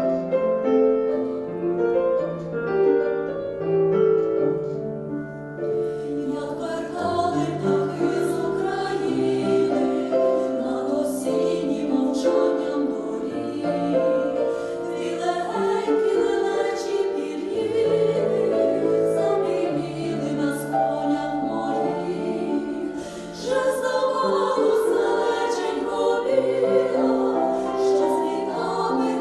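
Piano playing alone, then a vocal ensemble comes in about five and a half seconds in, singing a Ukrainian song in parts over the piano accompaniment.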